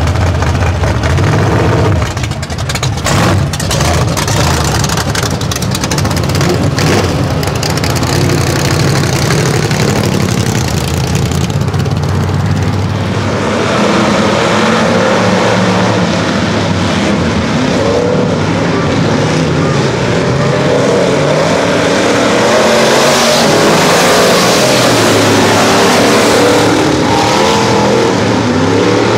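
Race car engines running on the track, loud and continuous; from about halfway through, several engines rise and fall in pitch over one another as the cars go by.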